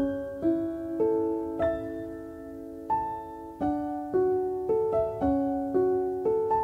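Gentle background piano music: single notes struck about two a second, each ringing and fading.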